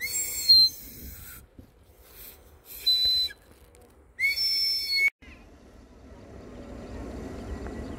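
Three loud, shrill whistle-like calls, each up to about a second long. From about five seconds a low jet rumble grows steadily louder as an airliner comes in.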